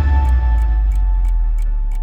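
A clock ticking about three times a second over the end of a music intro, whose deep bass tone lingers and slowly fades.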